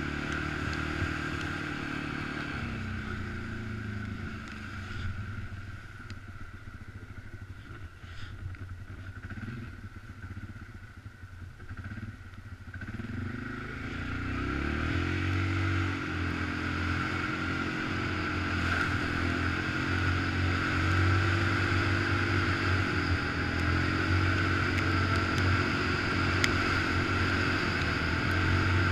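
ATV engine running under way on a dirt trail. It eases off and quietens for several seconds, then the revs climb again about halfway through and it runs steady and louder.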